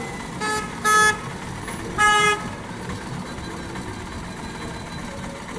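Vehicle horn honking three short times in the first half, the third honk a little longer, over a steady background hum.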